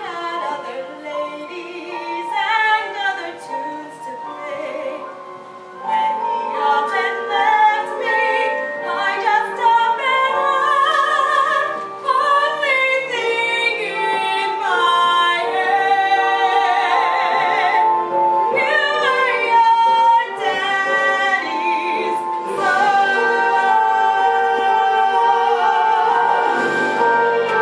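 A woman singing a musical-theatre ballad solo with a strong vibrato. It grows louder about six seconds in and ends on long held notes.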